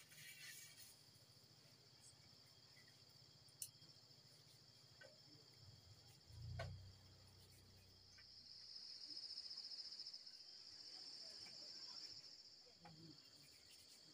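Near silence with faint, steady insect chirring, growing louder for a few seconds past the middle. A few soft clicks, and a dull thump about six and a half seconds in.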